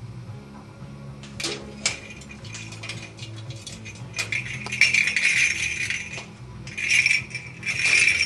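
A parrot's toy being rattled and knocked about as the bird plays with it: irregular clicks and jangling clatter, busiest about five seconds in and again near the end.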